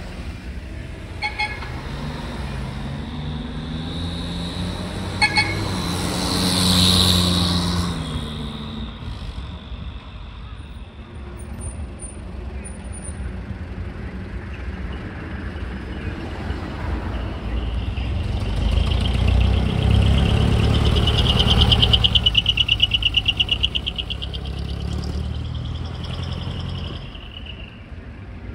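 Decorated trucks driving off one after another, their engines revving up as they pass and fading away. High-pitched sounds ride over the engine noise twice: briefly about seven seconds in, and as a fast fluttering pulse around twenty-two seconds in.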